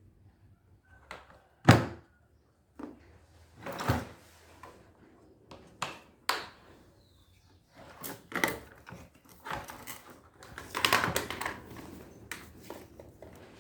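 Parts of a vacuum cleaner being handled: a series of irregular knocks, clicks and clatters, the loudest a sharp knock just under two seconds in, with a busier run of handling noise around eleven seconds.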